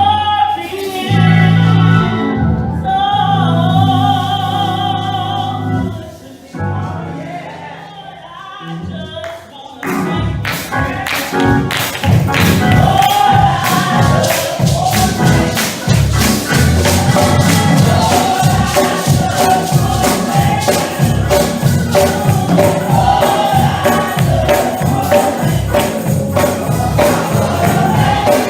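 Gospel praise and worship: a church choir and congregation singing over held instrumental notes. About ten seconds in, a fast, steady beat with tambourine comes in under the singing.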